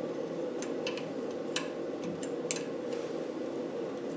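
A handful of sharp, light ticks at uneven intervals over a steady low background hum.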